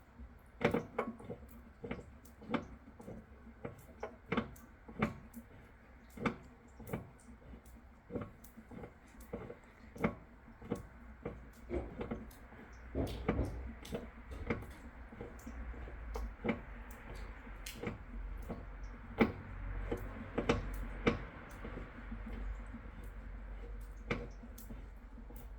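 Irregular light knocks and clicks, one every half second or so, over a faint low hum that grows stronger about halfway through.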